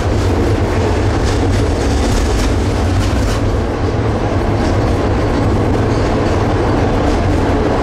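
Satra III tram running along the track: a steady low rumble with irregular clicks of the wheels passing over rail joints.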